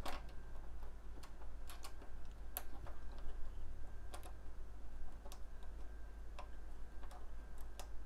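Light, irregular clicks and ticks of small screws being turned by hand to fasten a VGA connector to a computer's slot back plate, metal on metal and plastic.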